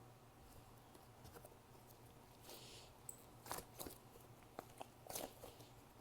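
Faint crackles and soft clicks from a squishy toy being squeezed and handled close to the microphone, with a brief rustle a couple of seconds in.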